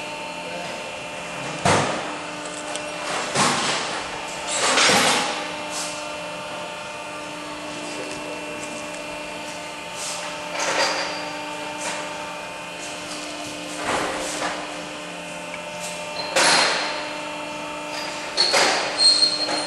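Barwell ECO Plus rubber preforming machine running with a steady hum, broken by short sharp noises at uneven intervals.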